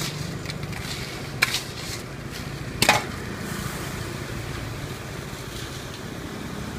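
Street-stall ambience: a steady low hum with a faint hiss, from the stall's deep-frying and the street around it, broken twice by short sharp clatters about a second and a half apart.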